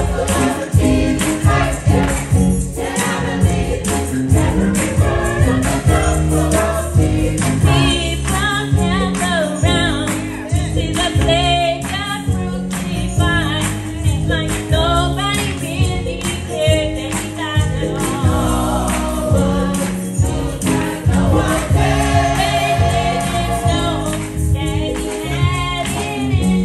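Gospel choir singing together, with a steady beat and bass notes underneath.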